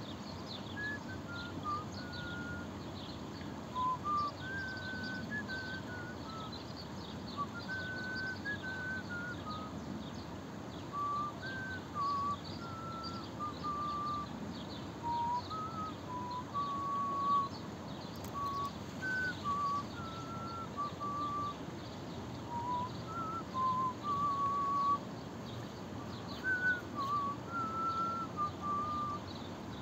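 Whistling: a long string of short, clear whistled notes that step up and down in pitch like a tune, with faint high chirps behind it.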